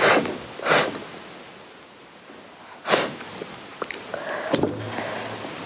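Three short breath noises close to the microphone, with a few small clicks about four seconds in.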